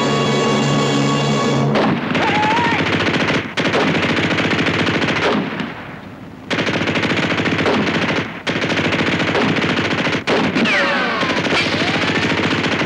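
A held music chord cuts off after about two seconds into long bursts of automatic machine-gun fire, broken by a few short pauses, with whining bullet ricochets.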